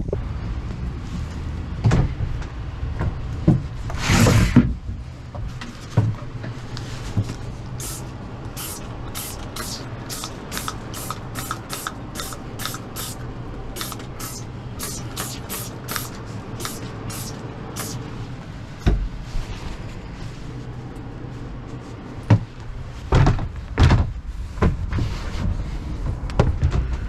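Trigger spray bottle squirted over and over in a small cabin, short hissing squirts at about two or three a second for some ten seconds. Knocks and handling bumps come before and after the squirts.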